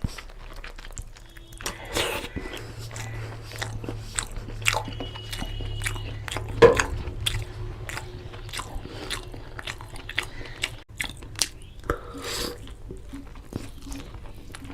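Close-miked chewing and biting of mutton nalli curry with rice, wet mouth smacks and sharp clicks coming irregularly, the loudest about six and a half seconds in.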